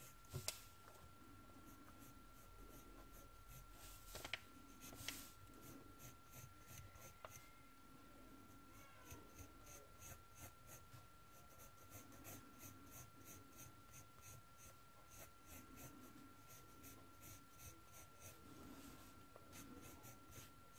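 Faint graphite pencil sketching on kraft paper: short scratchy strokes, two or three a second, as small circles are drawn. A faint steady high tone runs underneath.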